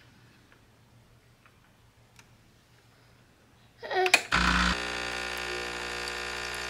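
Near silence for about four seconds, then a young child's short babble. About four and a half seconds in, a Breville espresso machine's pump kicks in with a low jolt and settles into a steady electric hum as the shot starts to pour.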